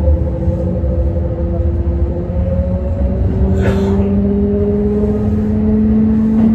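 Kintetsu 1620-series electric train under way: its traction motors give a steady whine of several tones that slowly rise in pitch as the train gathers speed, over a low rumble of wheels on rail. A brief sharp clack a little past halfway.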